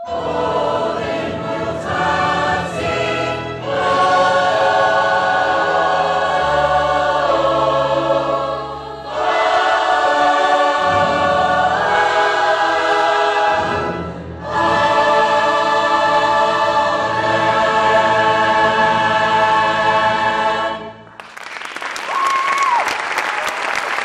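Large mixed choir singing sustained, full chords with orchestra, in long phrases broken by short breaths. The final chord cuts off about three seconds before the end, and an audience breaks into applause, with one whistle.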